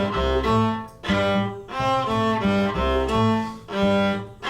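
Viola and bass playing an instrumental passage: short held bowed notes in repeating phrases over a deep bass line, with brief breaks between phrases.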